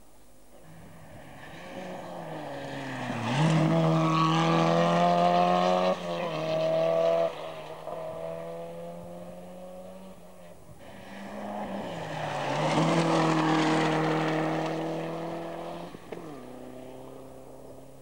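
Rally car engine at full throttle on a gravel special stage, climbing to a steady high rev, with sudden drops in pitch at gear changes or lift-offs. The engine sound swells and fades twice.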